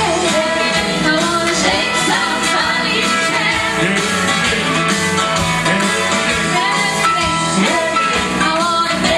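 Vocal group singing a gospel song over instrumental accompaniment.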